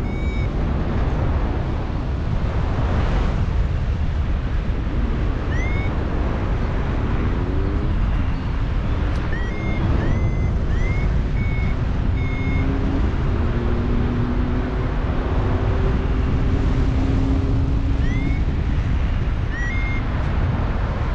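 Strong wind rushing and buffeting over the microphone during a paraglider flight, with short high chirps now and then and a faint steady hum through the middle stretch.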